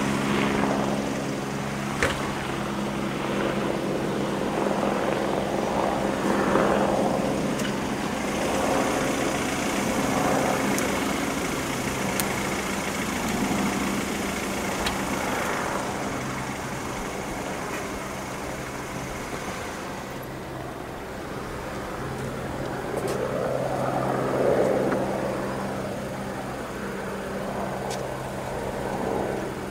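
Eurocopter BK117 twin-turbine helicopter flying away after takeoff: a steady rotor and turbine drone, with passing road traffic swelling and fading several times.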